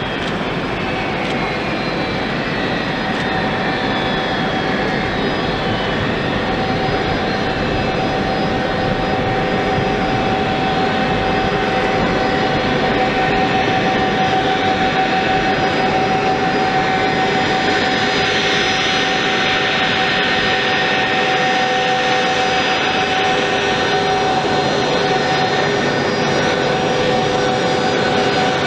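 Four Aviadvigatel PS-90A turbofans of an Ilyushin Il-96-300PUM at taxi power: a steady jet whine with several held tones over a rushing noise. It grows slightly louder and brighter about halfway through as the airliner draws closer.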